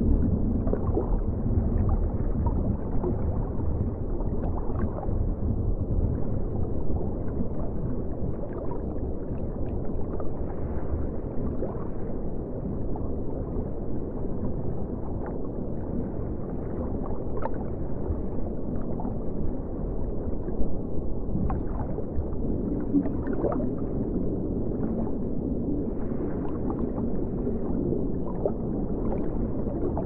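Underwater ambience: a steady low rumble of moving water, with scattered faint clicks and crackles.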